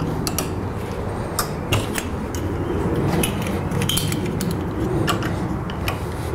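Steel bulldog clips being opened and snapped onto the folded edge of a foam deck mat: a string of sharp clicks and metallic clinks over a steady low background rumble.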